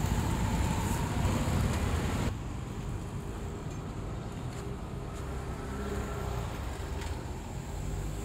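Street traffic noise with a low rumble, which becomes quieter and duller about two seconds in.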